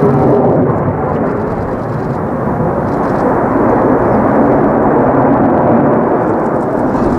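Loud, steady rumble of an F-16 fighter jet's F110 turbofan engine as the jet manoeuvres overhead, with nearly all its energy below the treble.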